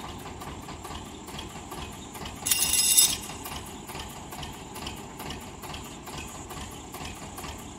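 Engine idling steadily with a fast, regular ticking. About two and a half seconds in, a loud, high-pitched squeal lasts about half a second.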